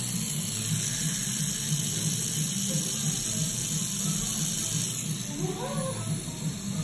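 Coil tattoo machine buzzing steadily as it works color into the skin, over background music and hiss. A short rising squeak comes about five seconds in.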